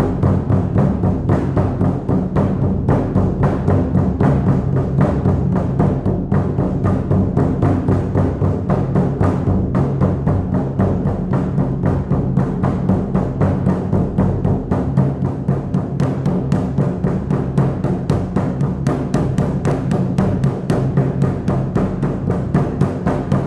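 Shamanic frame drum beaten in a fast, even, unbroken rhythm, each stroke a deep boom.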